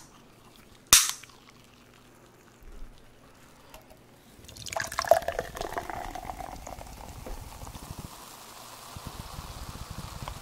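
Aluminium soda can snapped open with one sharp pop about a second in. From about four and a half seconds cola is poured into a glass mug, splashing at first, then a steady fizz of carbonation as the foam rises.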